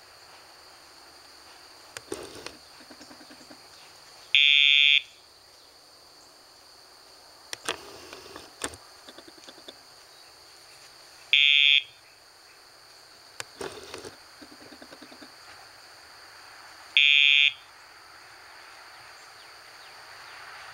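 Dogtra e-collar pager made audible by a sound box: three buzzing tones, each about half a second long, several seconds apart, each a cue for the dog to turn with the handler while heeling. Faint clicks and short rattles come between them.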